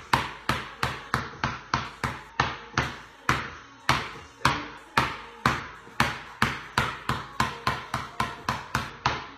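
A basketball being dribbled on a concrete garage floor: sharp bounces at about three a second, each echoing briefly in the garage.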